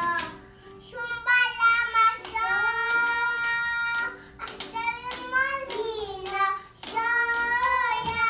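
Young children singing in long, held, wavering notes, with sharp clicking taps scattered throughout and a short pause about half a second in.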